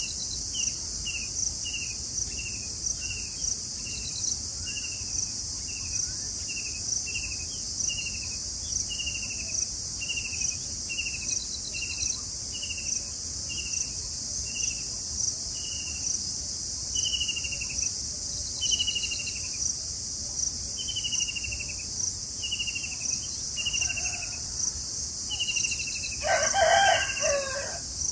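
A bird repeating short, falling whistled notes, about two a second at first and then slower, longer slurs about once a second, over a steady high insect buzz that pulses evenly. Near the end a louder, lower call lasting about a second and a half stands out.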